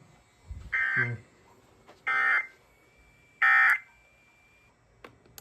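Three short electronic beeps from a weather radio receiver, about a second and a half apart, the last the loudest. A dull thump comes just before the first beep.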